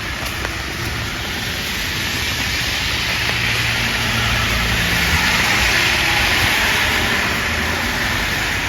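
A car passing on a wet street, its tyre hiss and engine rumble swelling over several seconds and then easing off, over steady rain.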